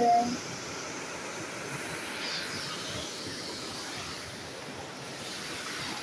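Waterfall and rushing creek water, a steady, even rush.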